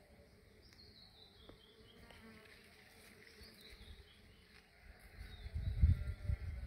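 Bee buzzing inside a squash blossom, faint at first, then loud and irregular in low bursts from about five seconds in.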